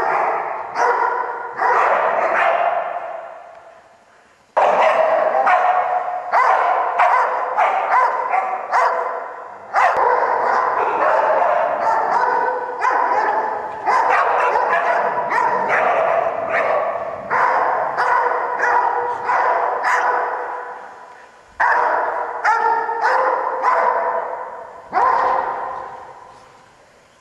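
Australian Shepherds barking over and over in fast runs of loud barks, with brief lulls about four seconds in and again near the end.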